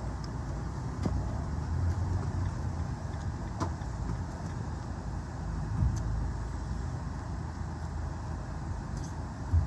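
Car driving steadily: a continuous low rumble of engine and road noise, with a few faint clicks.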